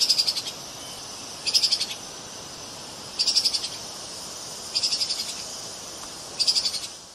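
Treeshrew calling: five short, high, rapidly pulsed chattering trills, about one every second and a half, over a steady hiss.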